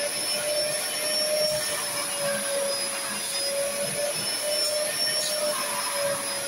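Upholstery-cleaning vacuum cleaner running steadily, its nozzle worked over fabric sofa cushions: a rushing hiss with a motor whine that wavers slightly in pitch.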